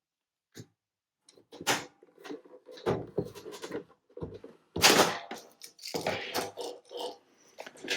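Plastic clicks, knocks and scraping from handling and fitting together the casing of a Commodore Amiga 1010 floppy drive, the sharpest knocks a little under two seconds in and about five seconds in.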